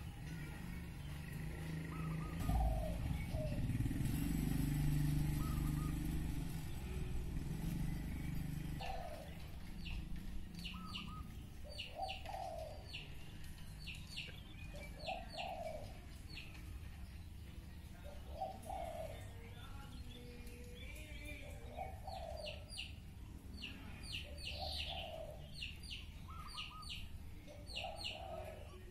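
Birds calling: a dove cooing over and over, about every one and a half to two seconds, and small birds chirping in quick runs. A low rumble sits underneath and is loudest in the first few seconds.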